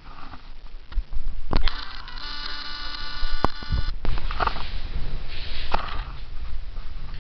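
A buzzing electronic tone with many overtones holds for about two seconds in the middle, over a low rumbling handling noise with a few sharp clicks.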